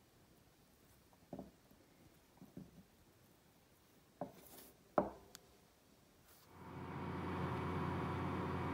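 A few light clicks and taps as a steel watch case is handled on a metal holder. About two-thirds of the way in, the steady hum of a laser welding machine with its fan running fades in and holds.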